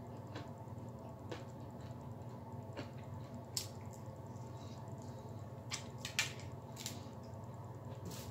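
Close-up mouth sounds of a person eating a fried chicken wing: scattered wet clicks and smacks of chewing and picking at the meat, the loudest about six seconds in, over a steady low hum.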